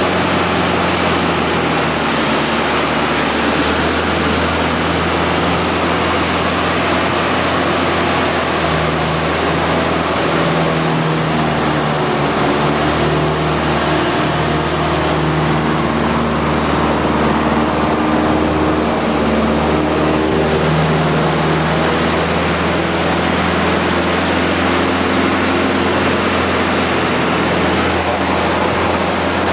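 Cockpit noise of a Mudry CAP 10B in flight: its four-cylinder Lycoming engine and propeller drone steadily under heavy wind rush. The engine note shifts slightly in pitch through the middle.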